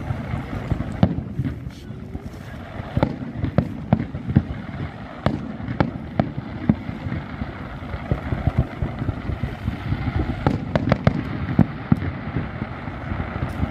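Fireworks display: aerial shells and fountain fireworks going off in irregular bangs and pops, at times several a second, over a steady low rumble.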